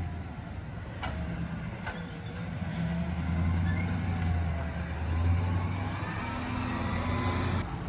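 Toyota LandCruiser 80 Series engine running at low revs as it crawls up a rutted sand track, getting louder in the middle as it passes close by.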